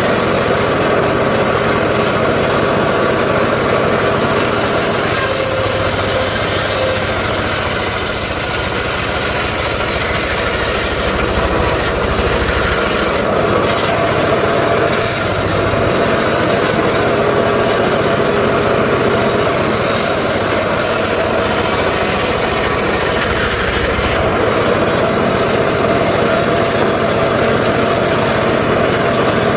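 Engine-driven saw running steadily without a break, a loud continuous mechanical drone.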